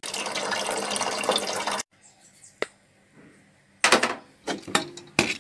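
Tap water running into a metal pot, a steady splashing hiss that cuts off abruptly after about two seconds. Near the end come several sharp knocks and clatters.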